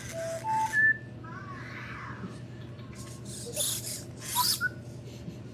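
Robot pets making electronic sounds: three short beeps stepping up in pitch, then warbling gliding chirps, then a few louder, noisier electronic bursts with sliding tones. A steady low hum runs underneath.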